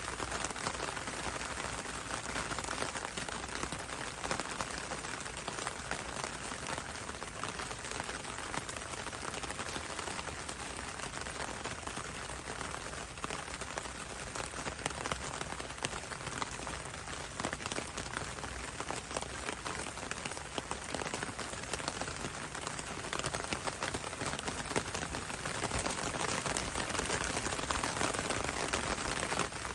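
Steady rain with many close, fine drop patters, raindrops falling on leaves.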